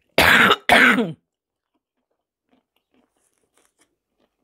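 A woman's dry cough: two short coughs in quick succession near the start. She puts the cough down to her thyroid goitre.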